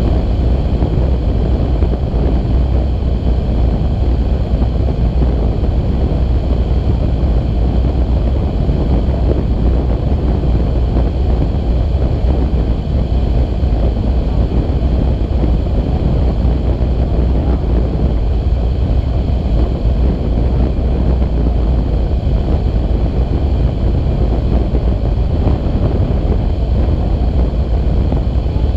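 Steady wind rush buffeting the microphone of a hang glider's boom-mounted camera in flight, a continuous low rumble that does not let up.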